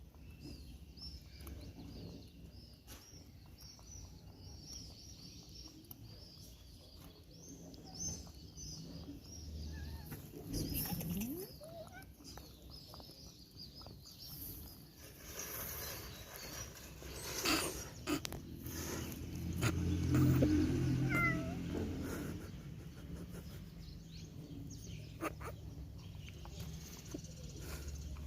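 Cats meowing and yowling, with the loudest cries past the middle.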